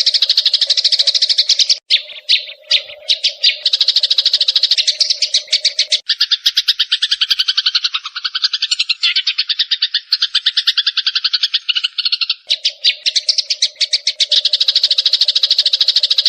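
Eurasian tree sparrows chirping rapidly and continuously, about ten high chirps a second. About six seconds in the chirping changes abruptly to a lower-pitched pattern, then switches back about twelve seconds in.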